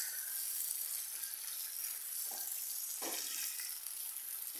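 Pork leg steaks and sliced onions sizzling steadily in hot oil in a non-stick frying pan as they are stirred with a silicone spatula.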